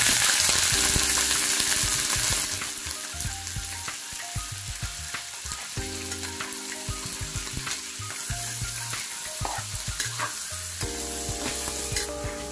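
Cubed pork belly hitting hot oil in a wok and sizzling loudly. After about two seconds it settles into a steadier, quieter frying sizzle, with the clicks and scrapes of a spatula stirring the meat.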